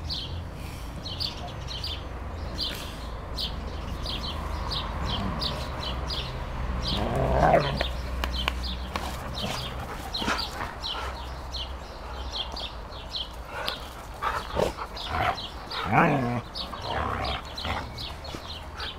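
Siberian huskies and a Pyrenean mountain dog play-fighting and vocalizing, with two louder calls about seven seconds in and sixteen seconds in, the second sliding down in pitch. Birds chirp in quick short notes behind them.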